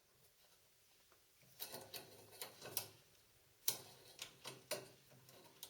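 A series of light, irregular clicks and knocks, about nine of them beginning about a second and a half in, over a faint low hum.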